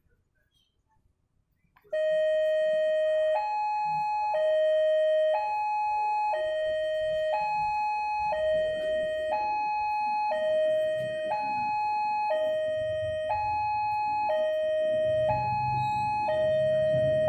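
Electronic level-crossing warning alarm starting about two seconds in: a high and a low tone alternating, each held about a second, signalling that a train is approaching. A low rumble builds underneath near the end.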